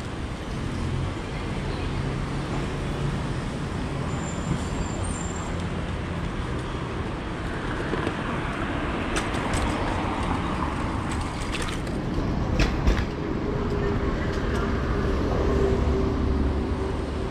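Street traffic: motor vehicles passing steadily, with a few sharp clicks in the middle and a louder steady vehicle engine hum in the last few seconds.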